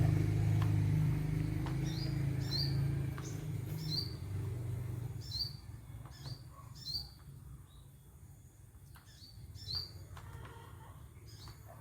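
A small bird chirping repeatedly, short high chirps about once a second, over a low hum that fades away in the first half.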